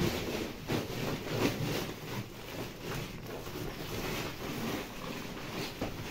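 Irregular rustling and scuffing of a feed sack and dry straw fodder being handled at a cattle trough, with short scrapes scattered throughout.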